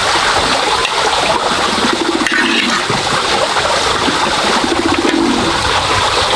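Water running and splashing steadily.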